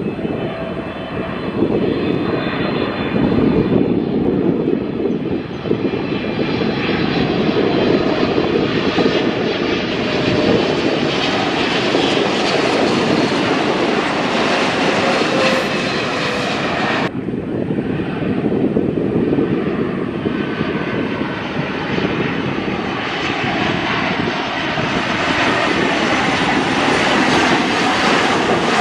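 Twin-engine jet airliners on landing approach passing low, their engines giving a steady roar with a faint whine. The sound breaks off abruptly about 17 seconds in and picks up again at once.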